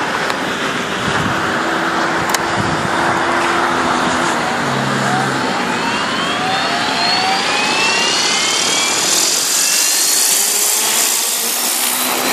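Electric ALZRC Devil 380 RC helicopter spooling up on the ground: its motor and gear whine rises steadily in pitch from about five seconds in as the rotor head speed builds, over a rushing of rotor noise that grows brighter near the end.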